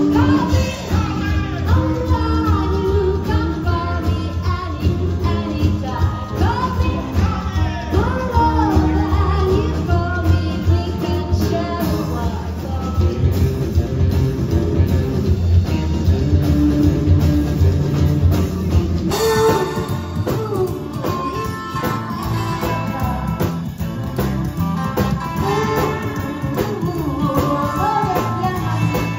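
Live rockabilly band playing: a woman singing over electric guitar, upright double bass and drums, heard from the crowd. About two-thirds of the way through the recording cuts suddenly to another live performance.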